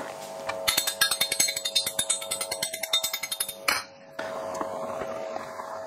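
Shell of a hard-boiled egg being cracked and peeled by hand, a rapid crackle of small clicks for about three seconds, ending with a larger crack.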